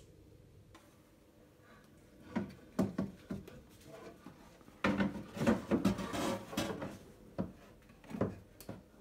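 Knocks, scrapes and clatter of a kitchen hood's blower fan unit being handled and shifted inside the wooden hood. It starts a couple of seconds in and is busiest around the middle, with a few single knocks near the end.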